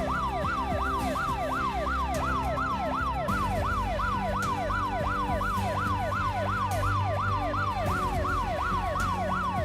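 Police siren in rapid yelp mode, its pitch sweeping up and down about three to four times a second, with low ambient music held underneath.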